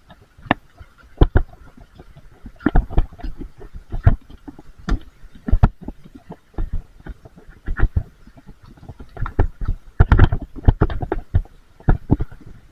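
Irregular knocks and thumps, some loud and some light, with a cluster of them about ten seconds in, over a faint steady high tone.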